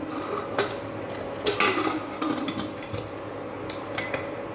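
Pressure cooker being closed: the metal lid clinks and scrapes as it is fitted into the pot, and the handles click as they are pressed together to lock, in several separate knocks. A steady hum runs underneath.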